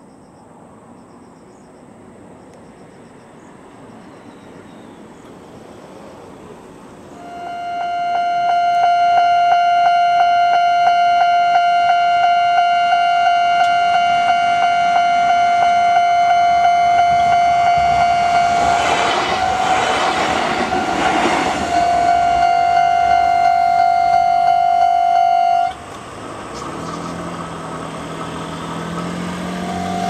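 Japanese level-crossing warning bell ringing in a fast, steady electronic repeat, starting about a quarter of the way in. In the middle a Kintetsu electric train runs over the crossing with a rush of wheel and rail noise. The sound cuts off suddenly, and the bell is heard again just before the end.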